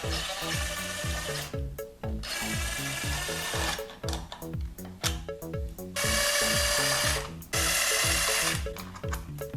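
A power drill running in four short bursts of about a second to a second and a half each, over background music with a steady beat.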